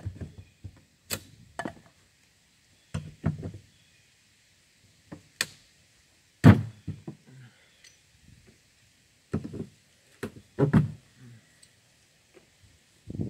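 Irregular knocks and thuds from carpentry work on a wooden chicken coop, about ten in all, with quiet gaps between them. The loudest comes a little after six seconds in.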